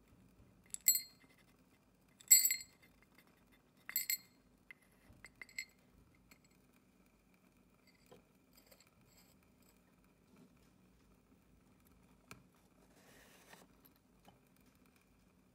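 Dried popcorn kernels tipped into a small stainless steel cup, clinking against the metal and making it ring in three loud bursts over the first four seconds, then a few lighter clinks.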